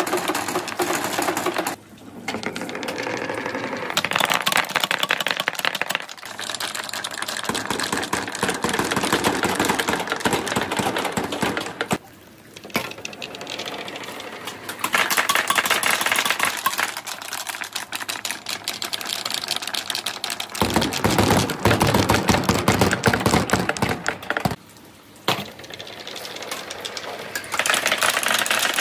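Billiard balls and small wooden balls clacking together and against the metal bars and wooden rails of a marble run as they roll down, a dense rapid clatter that grows louder and softer in stretches.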